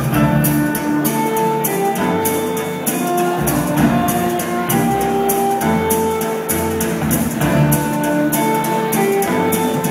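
Live rock band playing: a held, slow melody over bass and a steady drum beat with regular cymbal strokes, with guitar.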